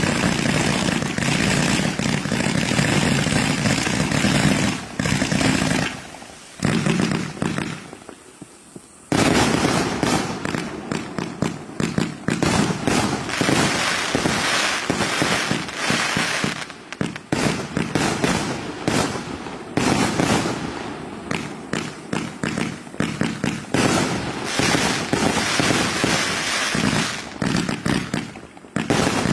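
A 1000-shot firework cake firing shot after shot in quick, dense succession. The firing drops away for about three seconds some six seconds in, then resumes as densely.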